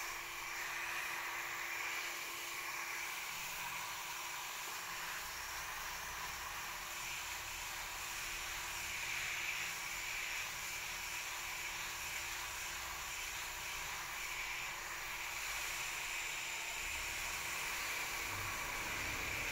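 Garden hose spray nozzle hissing steadily as a fine spray of water falls on leafy shrubs.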